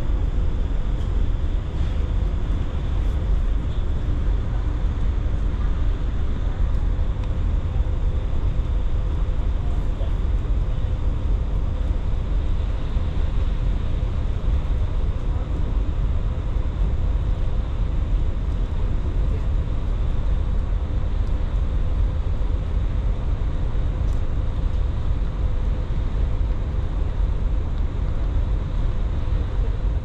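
Steady low rumble and hum aboard a ferry under way, with a few faint constant machine tones over it and no distinct events.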